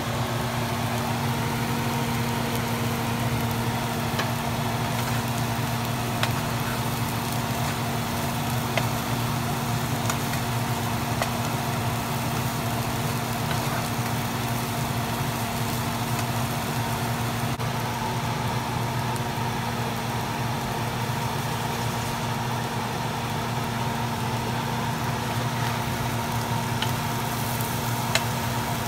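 Salmon and sliced onions frying in a pan, a steady sizzle over a constant low hum, with a few light knocks of a wooden spoon against the pan.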